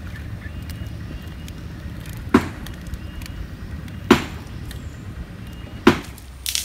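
Three sharp, loud hits, evenly spaced about a second and three quarters apart, over a steady low rumble, with a smaller cluster of hits near the end.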